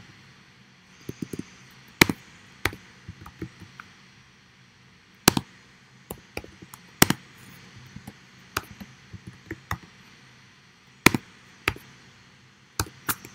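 Computer keyboard being typed on: sparse, irregular key clicks, a few of them sharper and louder than the rest.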